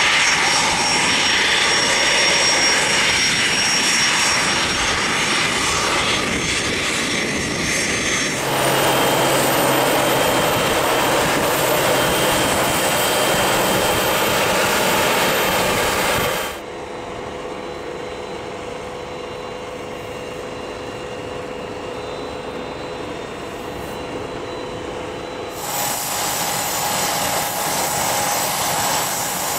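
A Bombardier Challenger 350 business jet's turbofan engines running steadily as it taxis. After abrupt cuts come more steady aircraft ground noise while a tug pushes it back, a quieter stretch with a steady hum, and louder jet noise again near the end.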